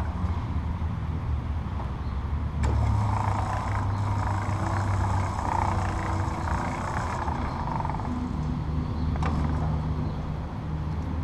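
Cable reel's 120-volt electric motor running steadily as it winds armored power cable back onto the drum, a low hum with a couple of sharp clicks.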